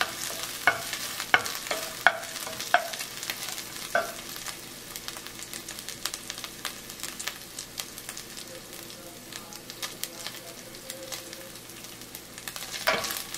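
Dried shrimp frying in a little hot oil in a stainless steel pan, a steady sizzle with faint crackles. In the first four seconds a spatula scrapes and knocks against the pan about five times, then only the sizzle goes on.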